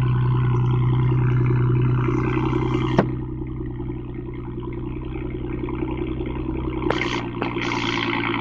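Ford Mustang 3.8 L V6 running cold with shorty headers and no muffler, idling with a loud, steady exhaust note. A sharp click comes about three seconds in, after which the engine runs a little quieter.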